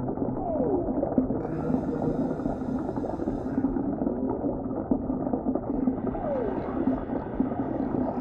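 Underwater ocean ambience with whale song: a low rumbling wash under drawn-out moans that fall in pitch, twice, and a higher thin call about two seconds in.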